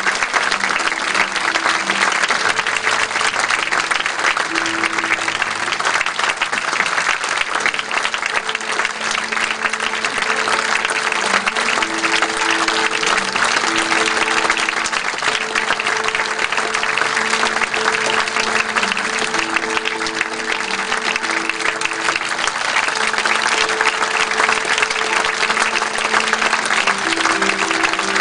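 Theatre audience applauding steadily at a curtain call, with a slow melody of held notes playing underneath.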